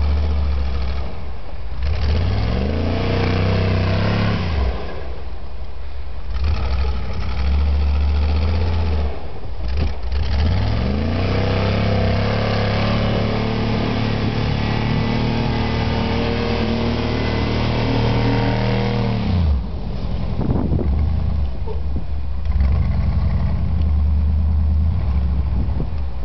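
Chevrolet Blazer 4x4's engine revving hard over and over as the truck churns through deep snow with its wheels spinning. The pitch climbs with each rev and drops back, most sharply about twenty seconds in.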